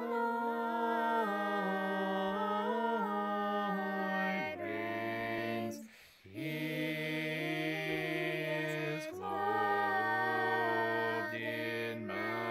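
Unaccompanied Orthodox church chant: voices sing a slow melody of long held notes over a sustained low drone note. There is a brief pause about six seconds in, and the drone shifts lower partway through.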